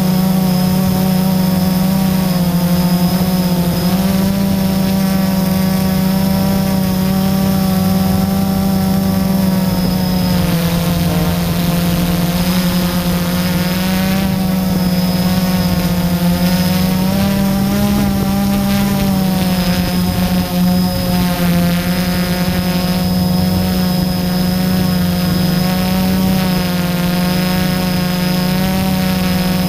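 Blade 350 QX quadcopter's four electric motors and propellers droning steadily, heard close up from the camera on board, with a stack of tones whose pitches waver up and down through the middle as the motors change speed.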